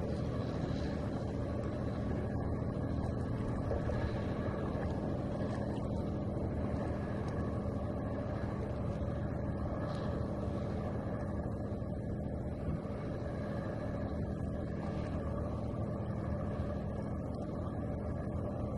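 Waterside ambience: a steady low mechanical drone with a constant hum running under an even wash of background noise, unchanging throughout.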